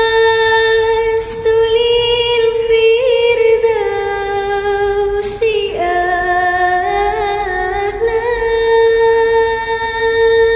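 A child singing Islamic sholawat unaccompanied in a high voice, drawing out long held notes with wavering ornaments, with quick breaths between phrases.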